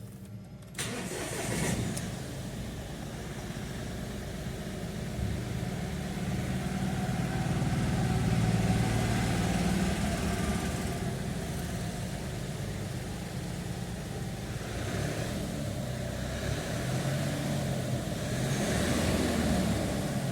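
Mahindra Bolero BS6 diesel engine cranking and catching about a second in, then idling steadily, starting normally now that the DEF level 'no start' warning has been reset.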